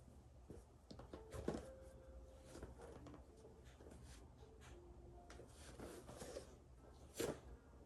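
Faint rustling and a few soft thumps of a person bowing down in full prostrations, clothing and body brushing the floor, the loudest about a second and a half in and again near the end, with faint short tones in the background.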